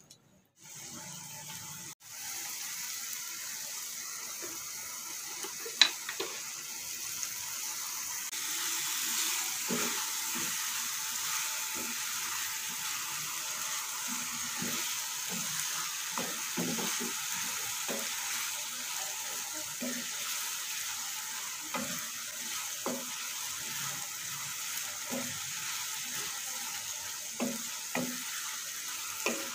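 Ground garlic and shallot paste frying in oil in a nonstick wok, a steady sizzle with irregular scrapes and light knocks of a spatula stirring it, and one sharper knock about six seconds in. The paste is being cooked slowly until the oil separates from it.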